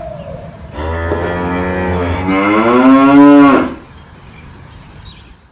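A cow mooing: one long call of about three seconds, starting about a second in and growing louder in its second half.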